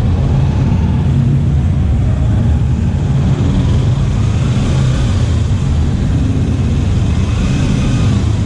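Kawasaki Ninja 300 parallel-twin motorcycle engine running steadily at low revs, loud and close.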